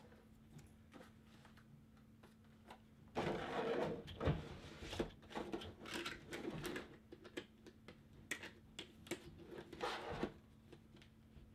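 Plastic and cardboard packaging of a boxed Funko Pop figure being handled and opened: a burst of rustling and crinkling about three seconds in, then scattered crinkles and light taps that stop about ten seconds in, over a faint steady hum.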